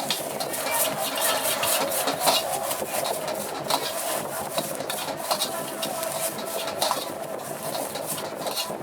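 Metal spatula scraping and clanking against a wok during stir-frying: a dense, irregular run of short scrapes and knocks over a steady background hiss.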